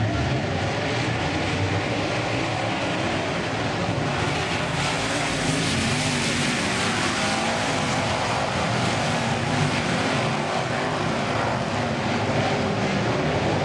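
A pack of Late Model speedway cars' V8 engines running together as they circle the track, a loud, steady drone with no break.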